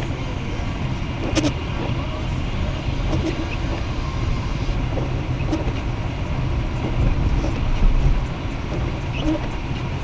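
Car driving on a snow-covered road, heard from inside the cabin: a steady low rumble of engine and tyres, with a few scattered faint clicks.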